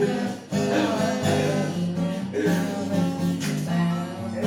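Acoustic guitar playing chords, with the chords changing every fraction of a second and a brief break just after the start.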